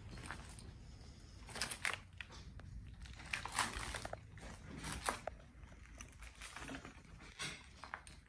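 Footsteps crunching and scuffing over broken plaster and debris on a floor, in a few irregular bursts.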